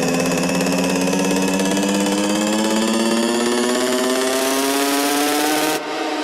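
Electronic dance music build-up: a buzzy synth tone rising steadily in pitch, joined by a hissing upward sweep about four seconds in. It cuts off suddenly near the end, leaving a few sparse quieter hits.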